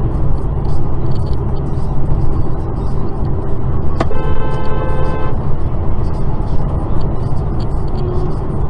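Steady road and engine rumble from inside a car at motorway speed. About four seconds in, a car horn sounds once for about a second: a warning honk at a semi-trailer truck cutting in close.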